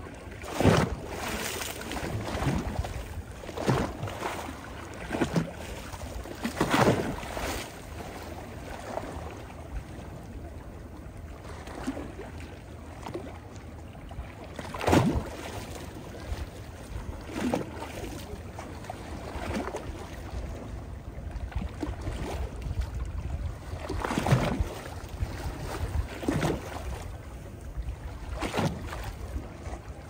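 Small waves on a calm sea lapping and splashing over stones at the water's edge, in irregular splashes every few seconds, with a steady low rumble underneath.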